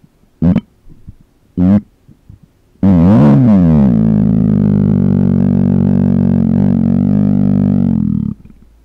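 Two short closed-mouth burps, then one long, loud closed-mouth burp of about five seconds that wavers in pitch at first, settles into a low steady tone and cuts off suddenly.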